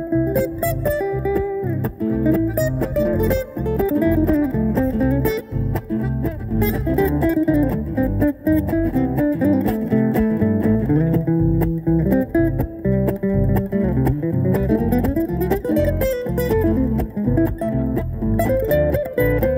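Live swing music from a small acoustic band: guitars with bass, one guitar picking melodic runs that climb and fall over a strummed rhythm.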